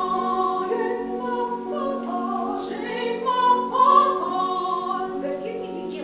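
A woman singing in classical, operatic style, holding long notes that step up and down in pitch, with piano accompaniment underneath.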